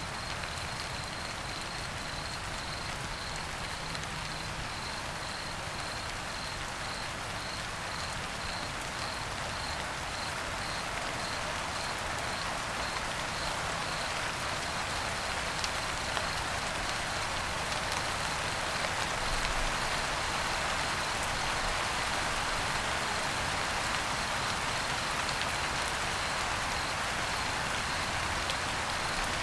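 Steady light rain falling on surfaces, growing a little louder in the second half, with crickets chirping in a faint, even high-pitched pulse that is clearest early on.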